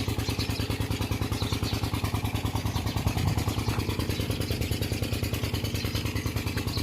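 Engine running steadily at a constant speed with an even, rapid thumping beat, about nine beats a second.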